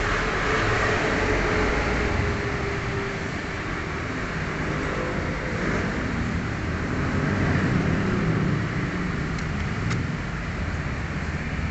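Road traffic noise from passing vehicles, with a low engine rumble swelling about two-thirds of the way in as a vehicle goes by.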